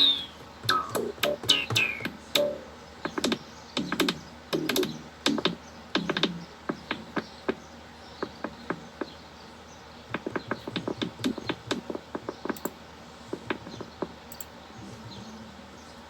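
Short percussive electronic hits and blips, some falling in pitch, played as a sound test of a repaired Akai MPK249 MIDI controller. They start out scattered, and from about ten seconds in they come as a quick, even run of hits.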